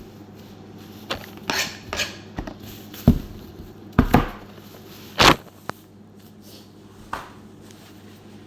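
Irregular knocks and clatters of kitchen items being handled and set down, about ten in all, the loudest about three, four and five seconds in.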